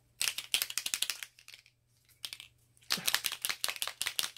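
A small bottle of alcohol ink being shaken hard, rattling in two quick bouts about three seconds apart. The shaking remixes the pigment that has settled at the bottom of the bottle.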